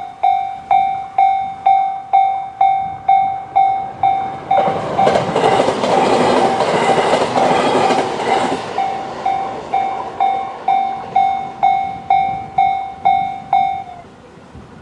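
Japanese railway level-crossing warning bell, the JR standard electronic tone, ringing about twice a second. An E129 series electric train passes through about 4.5 s in, and for some four seconds its running noise and wheel clatter cover the bell. The bell stops shortly before the end as the crossing clears.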